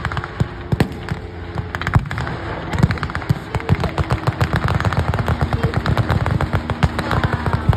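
Small-arms and machine-gun fire: scattered shots at first, then a dense crackle of rapid shots from about three seconds in, over the steady drone of light aircraft engines.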